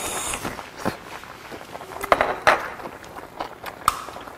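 A person eating: a short slurp from a small bowl right at the start, then chewing with scattered clicks and clinks of metal chopsticks and dishes, the loudest about two seconds in.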